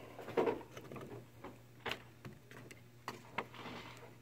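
A handful of faint, scattered clicks and light knocks, the clearest near the start, over a low steady hum.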